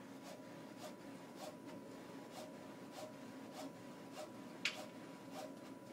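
Powder-bed 3D printer working, heard faintly: a low steady hum with light clicks about twice a second and one sharper click near the end.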